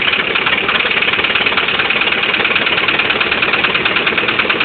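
A 1990 Honda Accord LX 2.2-litre four-cylinder engine idling with a rapid, even knocking, which the owner suspects is rod knock or wrist pin knock despite new standard bearings.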